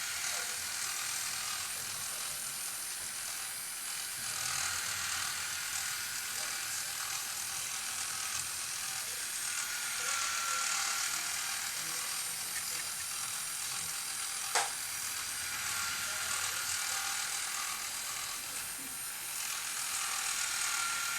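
Electric toy dinosaur's small motor and gears whirring and clicking steadily as it runs, with one sharp click about two-thirds of the way through.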